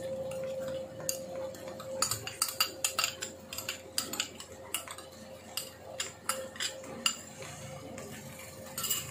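Irregular clicks and taps of a plastic cup knocking against a karahi as yogurt is emptied out of it into frying mutton, over a faint steady hum.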